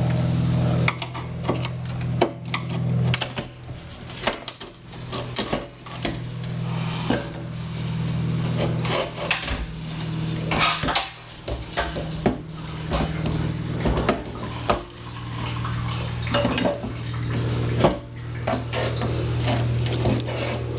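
Irregular metal clinks, clanks and knocks from handling a Jeep Cherokee fuel pump assembly and its metal tank parts, over a low steady hum that comes and goes.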